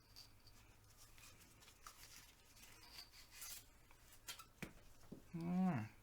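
Faint rubbing and scraping of a cleaning tool being pulled through the barrel of a 1911 .45 pistol, with a couple of light clicks about four and a half seconds in. A short murmur of a man's voice comes near the end.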